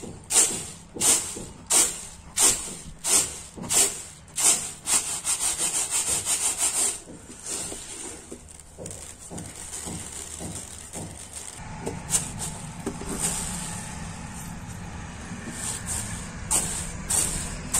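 Roasted pearl millet grains swishing across a plastic tray as it is jerked back and forth to winnow out the chaff, in regular strokes about one and a half a second. After about seven seconds this gives way to quieter rubbing and shuffling as a hand works the grains, with a few more swishes near the end.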